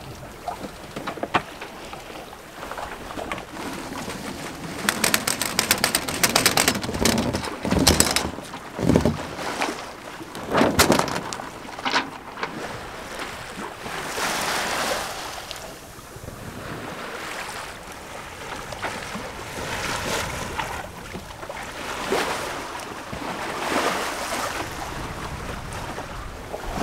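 Water rushing along a sailboat's hull and wind on the microphone while under sail, swelling and easing every few seconds. A run of sharp clicks and knocks comes about five to eight seconds in, and a few more around ten seconds.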